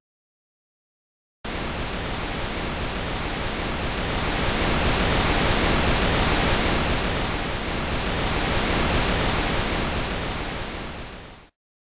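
A steady rushing hiss like static, starting abruptly about a second and a half in after dead silence and fading out near the end.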